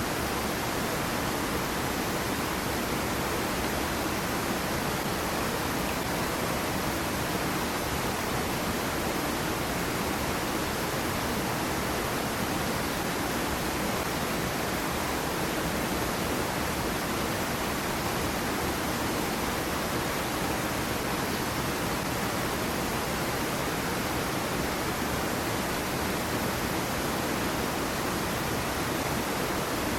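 Small waterfall on a stream, water falling and running in a steady, unbroken rush.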